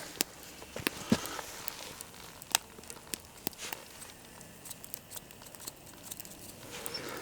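Irregular sharp crackles and pops from bacon frying in a pan over a campfire and the burning wood beneath it, over a faint steady hiss.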